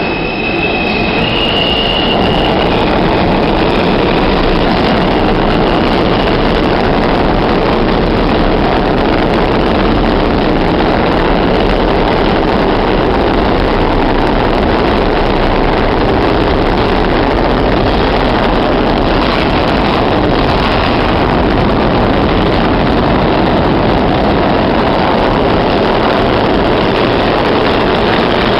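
New York City subway train running at speed, heard from inside the car: a loud, steady rumble of wheels on rails. A brief high-pitched whine comes about two seconds in.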